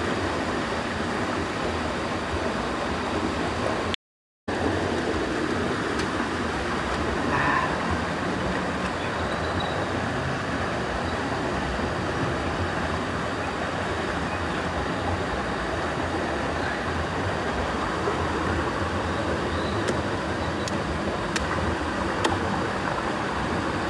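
Steady rush of a forest stream flowing over rocks. It cuts out for about half a second some four seconds in, and a few faint ticks come near the end.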